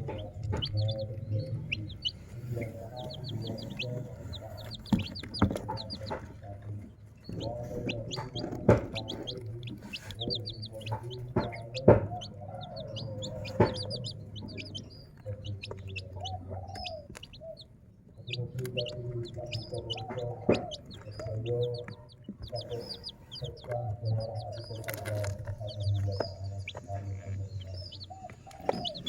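Chicks peeping in quick high chirps over the low clucking of chickens, with scattered sharp taps.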